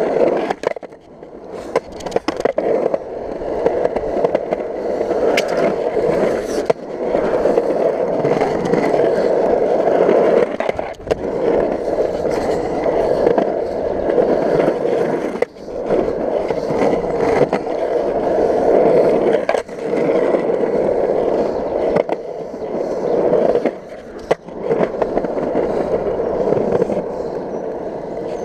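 Skateboard wheels rolling over concrete in a skatepark bowl: a steady loud rumble that rises and falls as the board carves. Several brief breaks in the rumble, and a few sharp clacks in the first seven seconds.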